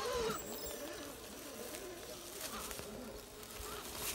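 Scale RC rock crawler's small electric motor and gear train whining steadily as the truck creeps slowly over rock, stopping about three and a half seconds in.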